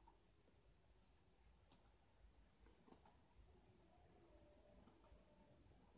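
Near silence: faint room tone with a steady, high-pitched pulsing tone and a few faint clicks.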